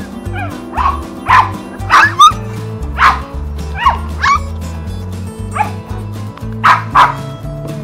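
Westiepoo puppies yipping and barking in short high-pitched bursts, about ten in all with a pause in the middle, over background music.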